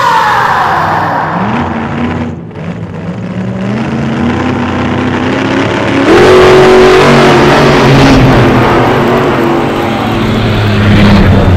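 Race-car engine sound effect revving and accelerating, its pitch climbing in steps like gear changes.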